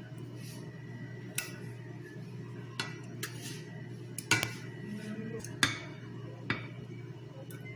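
A metal spoon clinks against a metal cooking pot and a plate as pieces of squash cooked in panela syrup are scooped out and served. There are about six separate clinks, the loudest a little past halfway, over a steady low hum.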